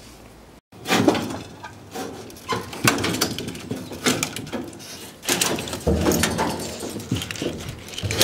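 Sheet-steel panels and parts of a crushed drive cabinet clattering and knocking as they are wrenched and worked apart by hand: an irregular run of clanks and rattles that starts suddenly about half a second in.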